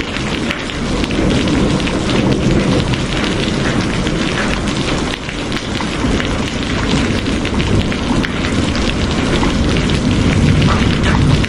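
Steady heavy rain, with many close drops ticking over a dense hiss and a strong low rumble underneath.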